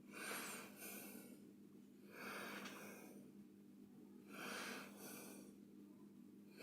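A man breathing audibly, faint: three breaths about two seconds apart, over a low steady hum.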